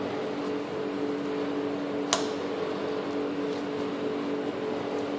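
Fork breaking up boiled potatoes on a steel platter, with one sharp clink of the fork on the metal about two seconds in, over a steady mechanical hum.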